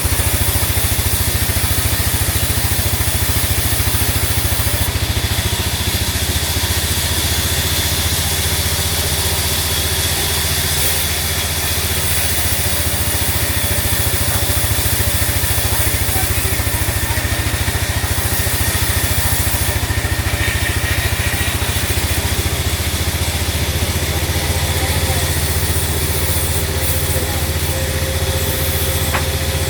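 Sawmill machinery running steadily: a constant low engine hum with a hiss over it, with no clear changes.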